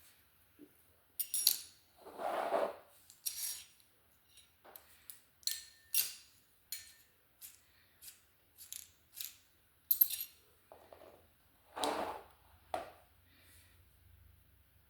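Fidget toys being handled and clicked: a string of sharp, irregular clicks and snaps, with two longer scraping handling sounds about two seconds in and near the twelve-second mark.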